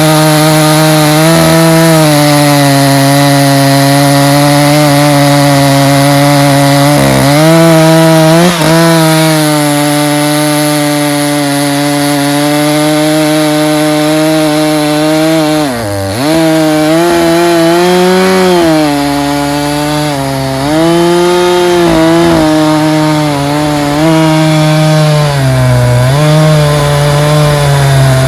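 Two-stroke chainsaw cutting wood at full throttle. The engine note holds steady, then sags and recovers several times as the chain bogs in the cut, most deeply about 16 seconds in.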